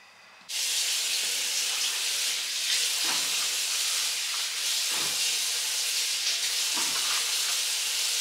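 Food frying in a hot pan, a steady sizzle that starts abruptly about half a second in, with a few soft knocks.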